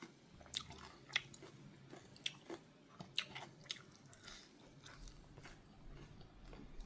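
A person eating red ant egg laab with sticky rice: quiet, irregular mouth clicks and smacks of chewing.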